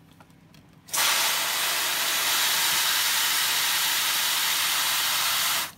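Garden hose pistol sprayer on its shower setting, spraying water into a plastic bottom tray: a steady hiss that starts suddenly about a second in and cuts off just before the end.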